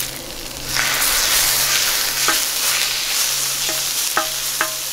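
Raw ground beef sizzling loudly on a hot carbon-steel Skottle disc with butter-fried onions, the sizzle surging up about a second in as the meat takes the heat. A metal spatula scrapes and clinks against the steel a few times in the second half.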